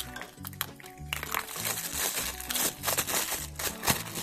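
Foil wrapper crinkling as a foil-wrapped surprise egg is unwrapped by hand, with the dense rustle strongest from about a second in until near the end, over background music.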